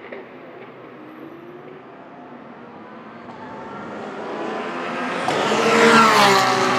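Ford GT GT1 race car's V8 approaching at speed, swelling from faint to loud and passing close near the end, its engine note dropping as it goes by.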